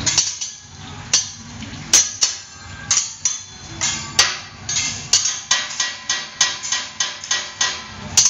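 Teppanyaki spatulas striking a steel griddle in a chef's show routine: a run of sharp, ringing metallic clacks, spaced out at first and then coming about two a second.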